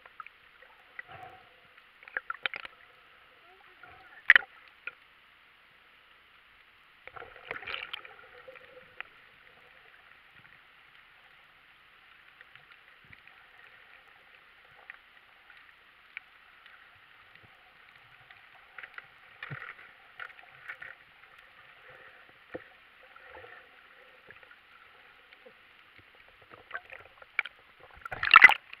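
Muffled underwater sound through a camera's waterproof housing: a faint steady hiss with scattered clicks and crackles, a sharp click about four seconds in, and a louder burst of noise just before the end.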